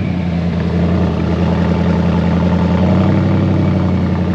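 Bentley Continental GT engine idling steadily, heard at the tailpipes.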